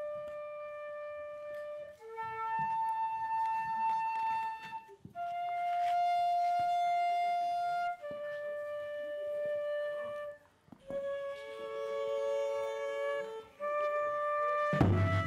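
Flute playing a slow line of long held notes, one after another, sometimes with a second note sounding at the same time. A sudden louder, deeper sound joins near the end.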